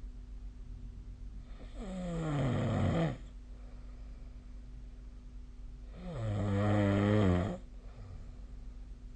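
A sleeping person snoring, two long pitched snores about four seconds apart. The first falls in pitch, the second is louder and wavers.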